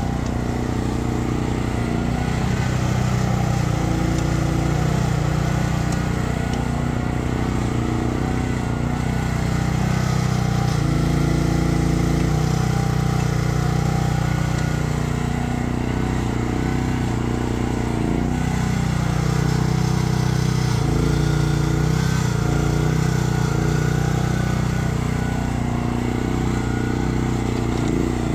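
Briggs & Stratton 13.5 horsepower engine of a 1-ton mini excavator running steadily while it digs, with small shifts in its note as the boom and bucket work.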